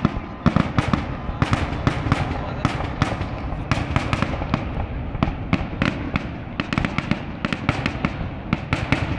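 Aerial fireworks finale: shell bursts going off in rapid succession, about three sharp bangs a second over a continuous crackle.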